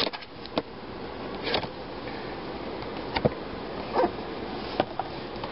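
A cardboard box being handled and opened: a handful of short taps, scrapes and rustles scattered over a steady background hum.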